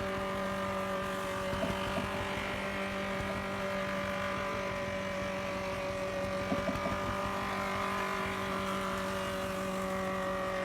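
A steam-powered wood planer running: a steady machine hum at one constant pitch, with faint light ticks now and then.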